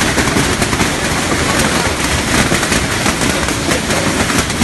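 Hailstorm: hailstones pelting down in a dense, unbroken rattle of countless small impacts.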